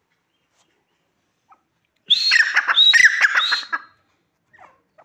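A francolin (teetar) calling: a loud run of quick, shrill, repeated notes lasting nearly two seconds, starting about two seconds in.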